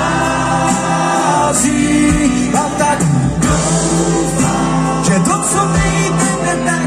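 A live pop-rock band with a Moravian cimbalom folk ensemble, fiddles, cimbalom and drums playing at loud, steady level, with singing over it.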